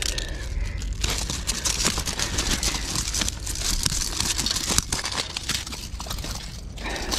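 Thin plastic bag crinkling and rustling as hands pull it about, dense and crackly from about a second in until near the end, over a steady low rumble.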